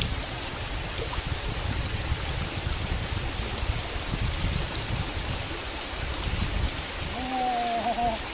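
Small waterfall spilling over a stone weir into a stream: a steady rush of water. About seven seconds in, a brief pitched sound joins it.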